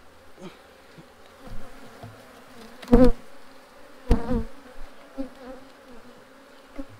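Honeybees buzzing steadily around an opened hive, louder twice, about three and four seconds in, while the wooden super is set back down onto the hive.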